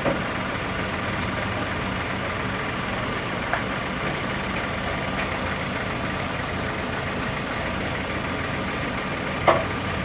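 Cat 426F2 backhoe loader's diesel engine running steadily at idle. A light click about a third of the way in, and a sharper metallic knock near the end, the loudest moment.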